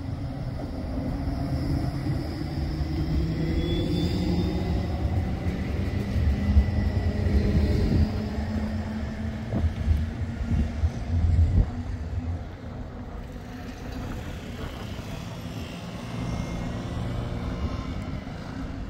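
An electric tram running on its rails: a low rumble with an electric motor whine that rises in pitch in the first few seconds. It grows louder toward the middle, then eases off.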